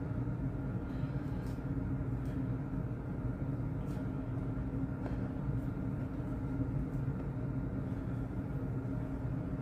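Steady low machine hum with a faint fixed tone, unchanging throughout, with a few faint soft clicks.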